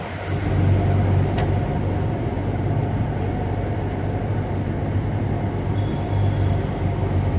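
Steady low hum and background noise inside a Mumbai suburban local train's coach, with a few faint clicks.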